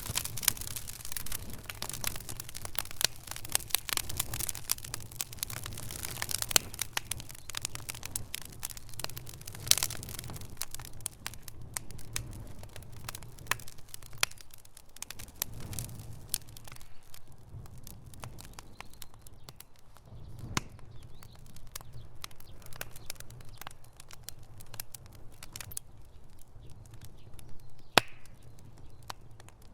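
Wood fire burning in a fireplace, crackling and popping over a low rumble of the flames. The pops come thick and fast at first and thin out to scattered single snaps in the second half, with one sharp pop near the end.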